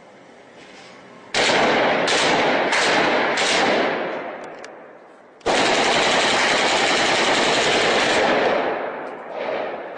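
Heavy gunfire in bursts with long echoing tails. A first volley breaks out about a second in with several sharp shots. A longer sustained burst starts about halfway through and fades near the end.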